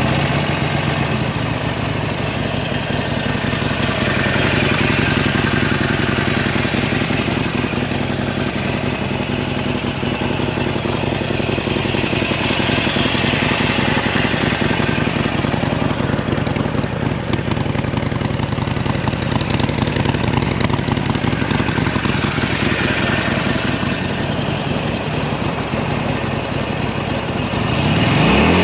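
2017 Harley-Davidson Forty-Eight's air-cooled 1200 cc Evolution V-twin idling steadily, freshly started. Near the very end the throttle is blipped and the revs rise.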